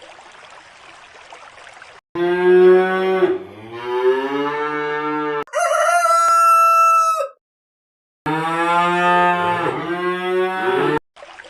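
A cow mooing in two long, low calls, with a rooster crowing once between them.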